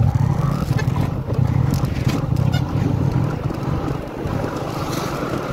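Motorcycle engine running steadily while riding, with wind noise on the microphone; the engine's deep hum eases off about four seconds in.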